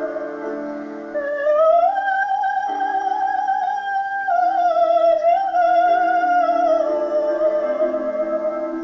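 A woman singing long, held high notes with vibrato over an instrumental accompaniment holding sustained chords. The melody steps up about two seconds in, then falls back gradually by the end.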